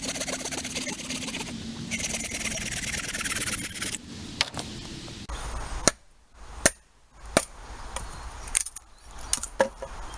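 A saw cutting through a chunk of ash wood with fast, steady strokes for about four seconds, then about eight sharp, separate knocks as work turns to splitting a billet out of the log.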